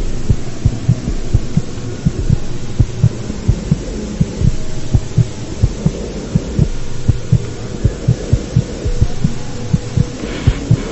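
Heartbeat sound effect: low, regular thumps about one and a half times a second, some in close pairs, over a steady low hum.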